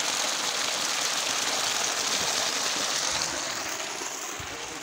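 Water gushing steadily from a solar-powered tube well's black plastic discharge pipe and splashing onto gravel, a continuous rushing sound that becomes fainter about three seconds in.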